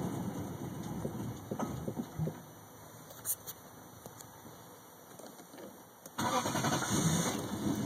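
1998 Lexus LS400's 1UZ V8 being cranked on the starter without properly catching, the fault behind its no-start. The engine sound fades out about two seconds in, and after a quieter pause with a few clicks a new cranking attempt starts abruptly near the end.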